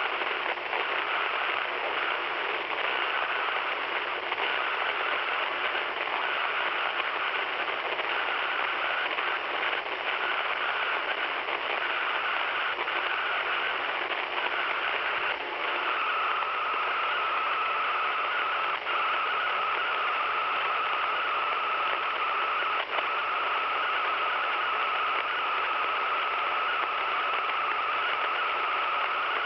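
Radio receiver playing steady hissing interference with a thin whine through it; about halfway through, the whine steps slightly lower in pitch and grows clearer. A few faint ticks sound in the hiss.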